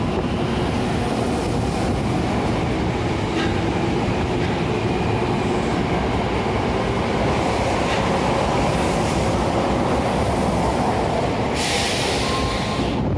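Osaka Municipal Subway 10A-series train pulling out of an underground station, its cars rumbling steadily past along the platform. About a second and a half before the end comes a burst of hiss that cuts off suddenly.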